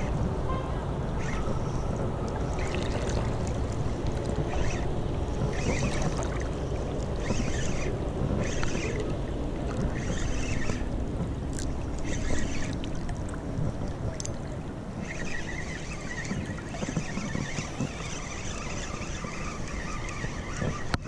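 River water lapping and sloshing against a camera at the water's edge, a steady low rumble with short splashy surges about once a second and a steadier hiss of water over the last few seconds.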